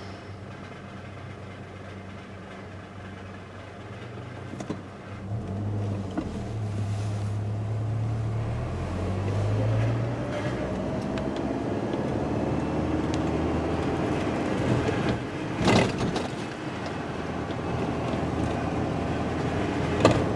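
Car engine and road noise heard inside the cabin while driving, quieter at first and then louder from about five seconds in as the car pulls away, with the engine note rising as it speeds up. Two sharp knocks, one about three-quarters of the way in and one at the end.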